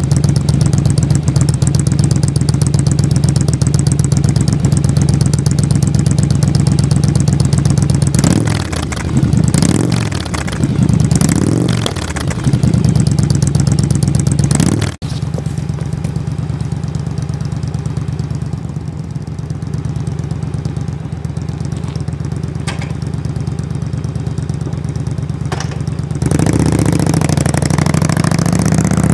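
Yamaha Drag Star 1100's V-twin engine idling, blipped up and down several times about a third of the way in. It then drops abruptly to a quieter idle and comes back louder near the end.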